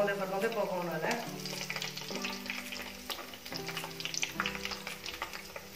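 Breaded cheese-and-sausage corn dogs deep-frying in hot oil: a steady sizzle with dense, fine crackling and popping. Near the start, a brief clatter as metal tongs turn one of them in the pan.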